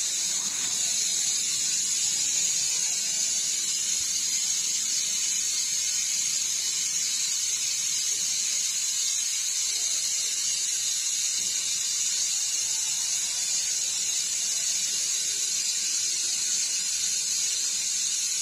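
Steady, loud hiss of air venting from a train coach's alarm-chain emergency brake valve, the brake pipe emptying after the chain was pulled. It cuts off suddenly at the very end.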